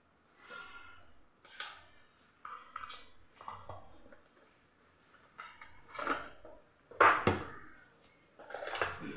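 Cardboard phone-box packaging being handled: the inner tray scraping and tapping against the box, with paper and plastic rustling as the contents are lifted out. Irregular scrapes and rustles, loudest about two-thirds of the way through.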